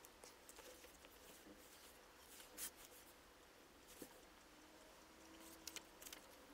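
Near silence: faint room tone with a few soft ticks, and a light handling of paper near the end as a sheet of printing paper is lowered onto the inked plate.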